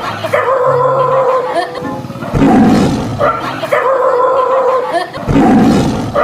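Lion roars repeating about every three seconds, each deep rough blast followed by a held higher-pitched cry, the same pattern looped over and over.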